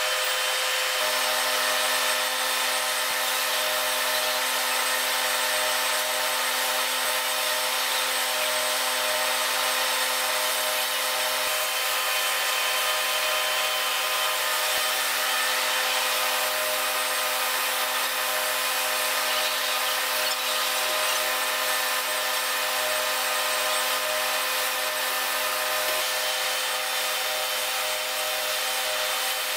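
Steady, unchanging machine noise with several held humming tones, like a power tool or machinery running continuously.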